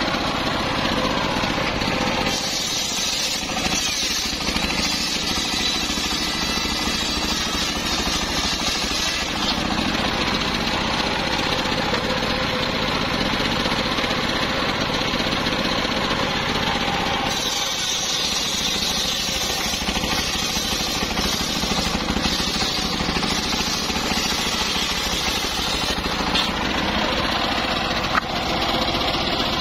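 Large circular saw blade on a homemade engine-driven saw bench ripping lengthwise through a log, the engine running steadily under the load of the cut.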